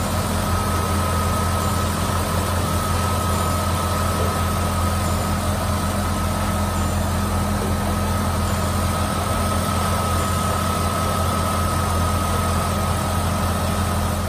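Box Chevy's engine idling steadily, with a thin, steady high whine over the low rumble, running on freshly changed full-synthetic oil.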